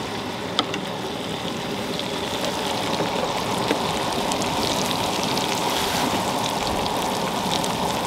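Marinated beef, shrimp and butter sizzling in a frying pan over a propane camp stove: a steady frying hiss with scattered small crackles, getting a little louder about two seconds in.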